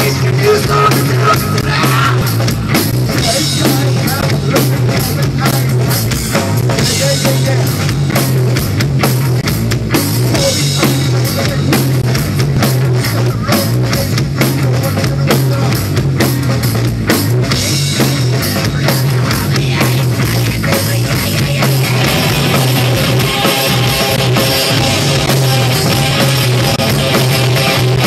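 Live rock band of electric guitar, bass guitar and drum kit playing a loud, dense passage over a steady driving drum beat.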